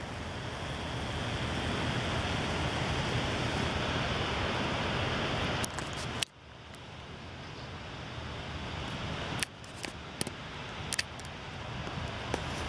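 A steady rushing noise that slowly swells, cuts out abruptly about six seconds in and builds again, with a few sharp light clicks in the second half.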